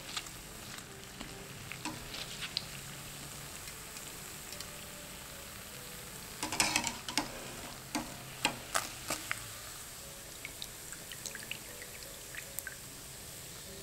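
Breaded bread ball deep-frying in hot oil: a steady sizzle with scattered crackles and pops. A cluster of louder, sharper crackles comes about halfway through.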